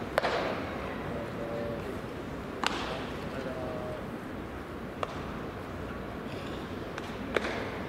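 Sharp cracks of baseball batting practice at a ballpark: four cracks about two and a half seconds apart, the loudest near the start and near the end, over steady background noise and distant voices. The last crack comes right after the pitcher's delivery, bat meeting the pitched ball.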